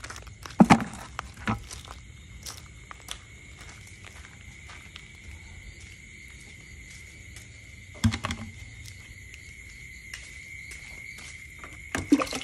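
Steady high-pitched trill of night insects. Over it come a few sharp knocks from plastic buckets being handled: the loudest about half a second in, more around eight seconds and near the end.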